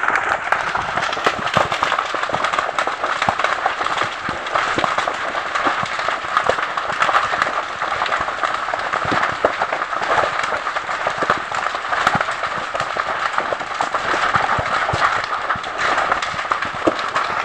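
Brush fire burning through trees, vines and undergrowth, crackling and popping densely and without a break.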